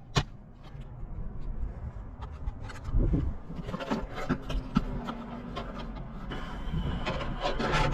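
Hands-on roofing work: a sharp knock right at the start, then scraping, rubbing and light knocks as the vent and shingles are handled.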